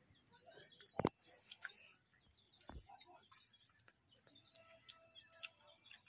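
Quiet close-up eating sounds: fingers mixing rice and dal on a steel plate and chewing, with scattered small clicks. A sharp knock about a second in and a duller one near three seconds.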